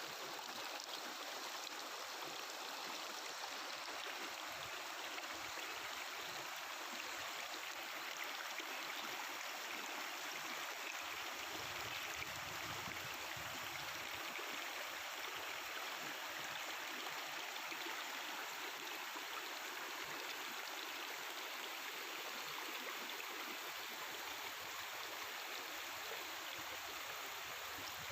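Mountain river water flowing and babbling over rocks in a steady rush.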